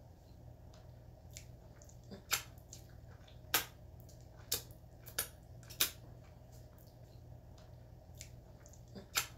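Scattered sharp, wet mouth clicks and smacks, about six spread over the stretch, over a faint low hum.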